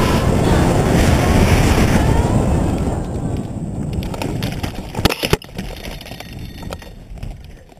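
Air rushing over the microphone of a hang glider's camera, dying away as the glider slows to land. About five seconds in, a short clatter of knocks as the glider touches down, then a few light knocks.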